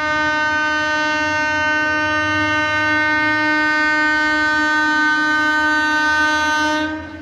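Indian Railways locomotive horn blowing one long steady note, which cuts off just before the end.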